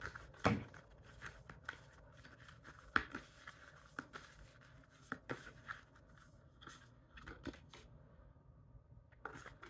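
A deck of cards being shuffled and handled by hand: soft, irregular snaps and slides of card on card, with a short lull near the end.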